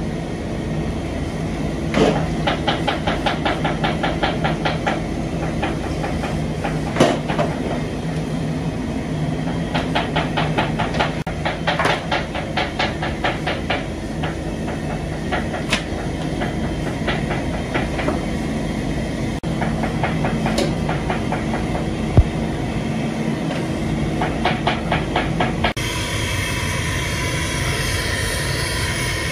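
Chunks of raw meat being handled and washed in large aluminium basins, with bursts of rapid clattering and a few sharp knocks over a steady low hum. Near the end the sound changes suddenly to the steady rushing of a gas burner's flames.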